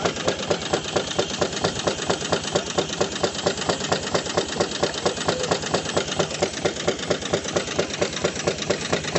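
13 horsepower Gaar-Scott steam traction engine running steadily, with an even beat of about six strokes a second.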